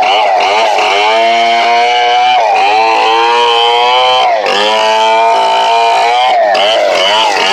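STIHL 070 two-stroke chainsaw running hard, its pitch dipping briefly and recovering about every two seconds.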